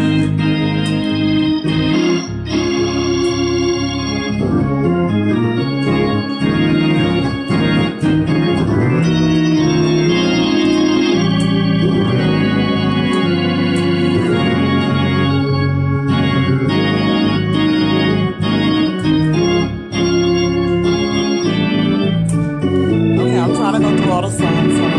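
Two-manual console organ playing a gospel medley: full chords held and changing every second or so, with a few short breaks between phrases.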